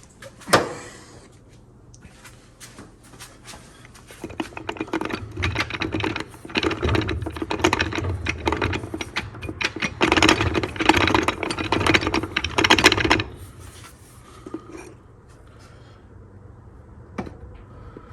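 Metal clutch plates in a TH400 transmission's clutch pack rattling and clinking as they are worked loose by hand. There is a sharp knock about half a second in, then a long run of rapid clattering that stops abruptly about two-thirds of the way through.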